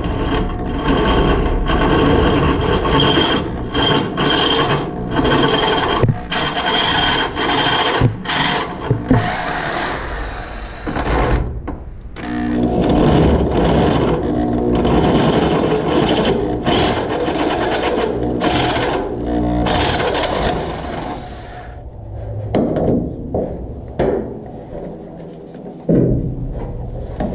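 Electric drill boring out bolt holes in a steel truck frame: the motor whines while the bit grinds and scrapes through the metal, in several runs that stop and start again.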